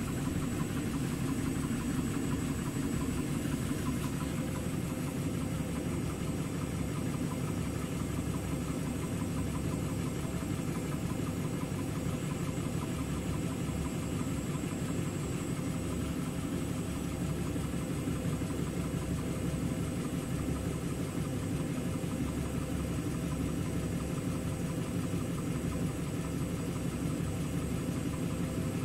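Indesit front-loading washing machine running with a steady hum as its drum turns slowly through thick suds. The machine is in a suds lock: the drum is full of foam.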